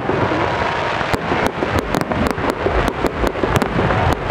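Aerial fireworks bursting overhead in a fast series of sharp bangs, about three a second, over continuous crackle and low rumble.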